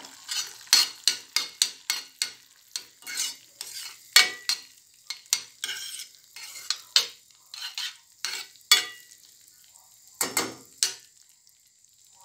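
Metal spoon stirring thick tomato sauce in a stainless steel pan, scraping and clinking against the pan in quick strokes about two a second, stopping near the end.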